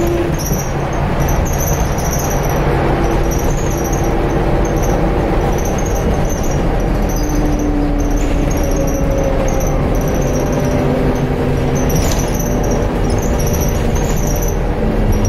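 Optare Solo bus's Mercedes turbo-diesel engine running, heard inside the passenger saloon: a steady loud drive noise with engine tones that shift in pitch and a high, wavering turbo whistle above it.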